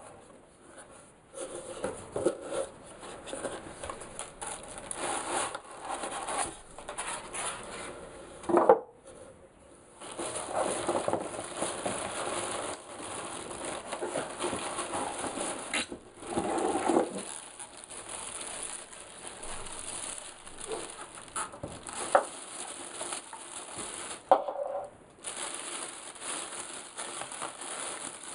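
Unpacking a cardboard box by hand: cardboard flaps, foam packing and a plastic bag around a speaker rustling and crinkling, with several louder knocks and scrapes, the loudest about nine seconds in.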